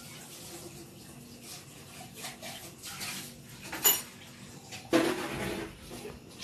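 Kitchenware clinking and knocking lightly, with one sharp ringing clink about four seconds in. A brief, louder sound starts suddenly about a second later.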